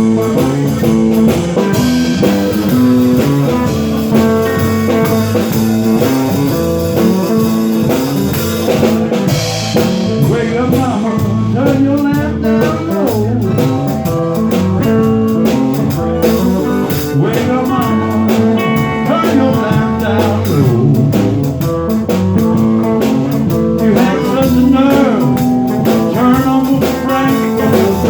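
Blues band playing an instrumental break: guitar over a steady drum-kit beat, with some bending, wavering notes.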